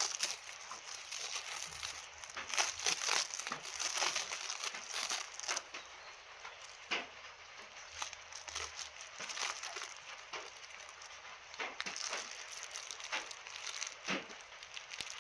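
Rustling and crinkling as plants are unpacked and handled, with many irregular sharp crackles.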